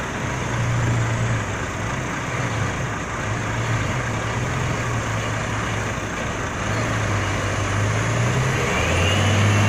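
DAF XF truck's diesel engine running under load as it pulls a loaded trailer, a steady low drone over road and tyre noise. About nine seconds in the engine gets louder and a rising whine comes in.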